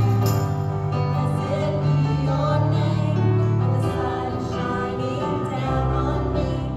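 A live worship song: women singing into microphones over acoustic guitar and keyboard accompaniment.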